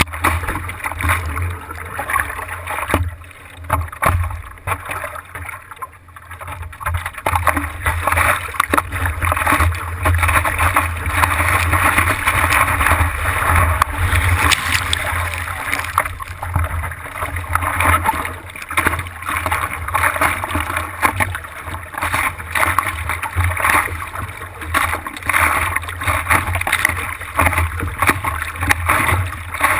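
Heavy ocean surf breaking and washing, storm-swollen by an approaching hurricane. It is a continuous rushing that swells and eases, with a steady low rumble underneath.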